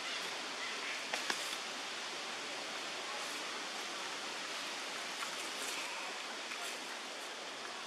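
Steady outdoor hiss with two faint clicks just over a second in, and faint short calls from long-tailed macaques about six seconds in.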